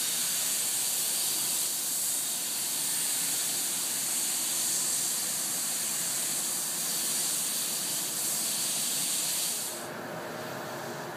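Steady loud hiss of rushing air that cuts off about ten seconds in, leaving a lower machine hum with a few steady tones.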